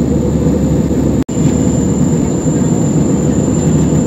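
Steady in-flight cabin noise of a jet airliner: engine and airflow noise, heaviest in the low range with a faint high whine. It drops out for an instant about a second in.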